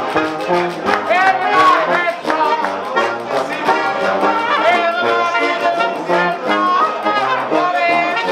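Live folk music from a diatonic button accordion together with a trumpet and a trombone, playing a tune.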